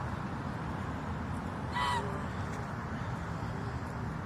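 A single short waterfowl call about two seconds in, over steady outdoor background noise.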